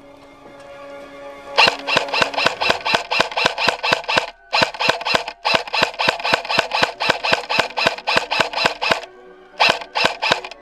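Airsoft electric gun fired on full auto: rapid, even shots at about eight a second in two long bursts and a short one near the end.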